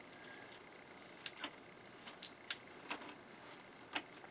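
Faint, irregular small metallic clicks, about seven in all, as a steel nut and washer are fitted and turned by hand onto plastic threads.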